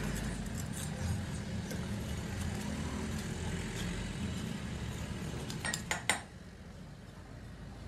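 Light metal-on-metal clinks and taps from hand work on a hydraulic jack's steel cylinder and base, over a steady low background hum. A quick cluster of sharper clinks comes about six seconds in, after which the sound drops quieter.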